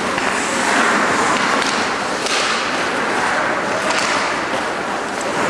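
Indoor ice hockey rink during play: steady noise of skates scraping the ice, with a couple of sharp stick-and-puck knocks.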